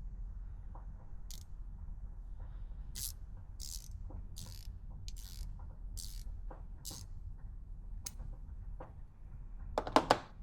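Hand ratchet being worked, with short bursts of rapid ratcheting clicks about once a second, then a few loud clicks near the end as a socket goes onto it.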